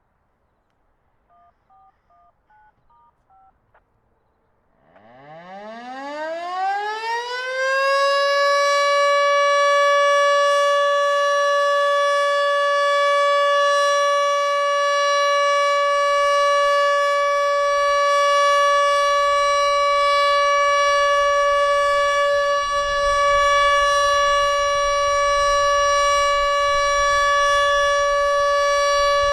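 H.O.R. Siro-Drone outdoor warning siren starting up for its monthly test: after a few faint short beeps, it winds up about five seconds in, its pitch rising for about three seconds, then holds one loud steady tone with many overtones.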